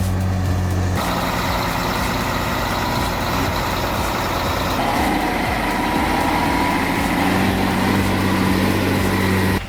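Scania 112 truck's diesel engine running under heavy load, hauling about 45 tons. Steady low hum for the first second, then a dense, loud engine noise with faint wavering tones.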